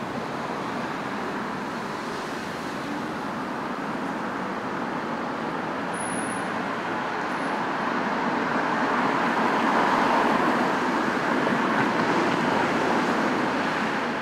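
Road traffic noise: a steady hiss of passing vehicles that swells louder for a few seconds past the middle as traffic goes by, then stops abruptly at the end.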